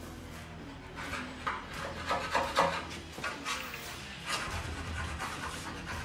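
Irregular knocks and scrapes of hand tools working on metal engine and frame parts, over a steady low hum.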